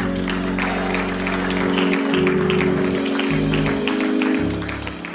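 Church praise music: held keyboard or organ chords with a bass line under steady sharp hits of clapping or drums, fading out near the end.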